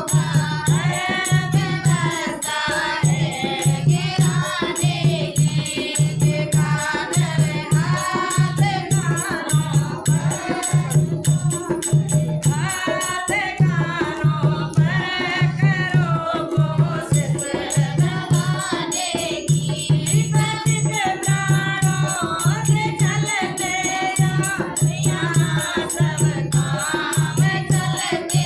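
A group singing a Hindi devotional bhajan over a steady, even drum beat, with high percussion clicking in time.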